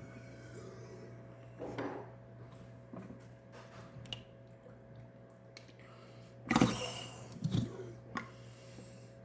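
Hands squeezing and squishing slime, with a few short, louder wet squelches about two-thirds of the way through, over a faint steady hum.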